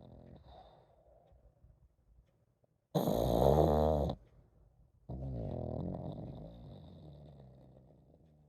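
A pug snoring: one loud snore about three seconds in that lasts about a second, then a longer, softer snoring breath that fades away.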